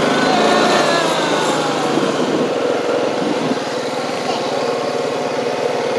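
ATV (four-wheeler) engine running while riding, its pitch falling over the first couple of seconds as it slows, then running steadily.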